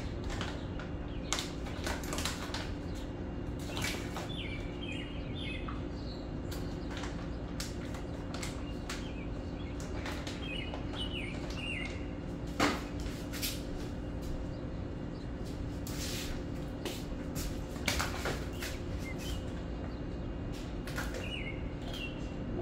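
Scattered clicks and light knocks of packaging and containers handled on a kitchen counter, over a steady electrical hum. A few short high chirps come and go, and there is a sharper click about halfway through.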